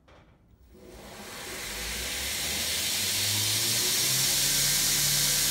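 Shop-built 2x72 belt grinder, driven by a 2.5 hp DC treadmill motor, spinning up from a stop as its speed knob is turned. The hiss of the 60-grit belt grows louder over about three seconds, with a low motor hum rising in pitch underneath, then it runs steady.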